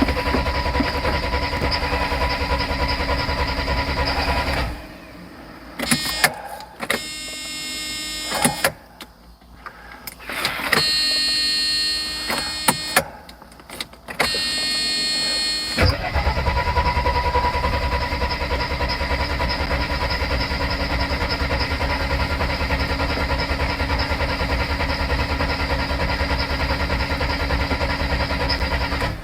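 Mercedes 300SL's engine being cranked on the starter in two long spells, with three shorter tries in between, as a start is attempted after fitting a replacement fuel pressure regulator.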